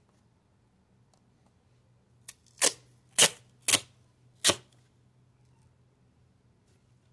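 Duct tape being pulled off the roll in four short rips, starting about two and a half seconds in and spaced about half a second to a second apart.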